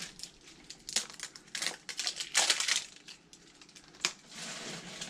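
Plastic Funko Paka Paka blind capsules being twisted and pried open by hand: a few sharp plastic clicks and snaps, with a stretch of crackling and crinkling about two and a half seconds in.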